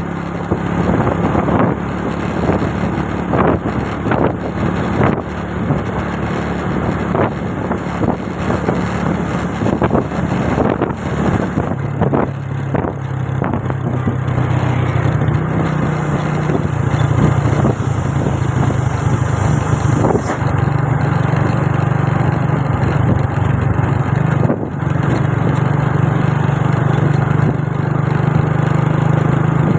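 Vehicle engine running steadily under road and wind noise, the hum changing and growing louder about twelve seconds in.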